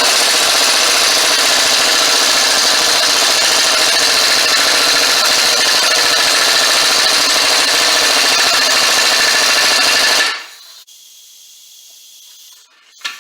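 Power tool running hard and continuously for about ten seconds, turning the forcing screw of a wheel bearing press tool to pull a front wheel bearing into its bore, then stopping suddenly.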